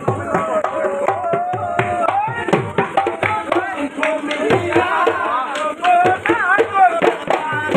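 Live folk music: a man sings a wavering, ornamented melody into a microphone over a double-headed dhol drum beaten in a fast, busy rhythm, each deep stroke dropping in pitch.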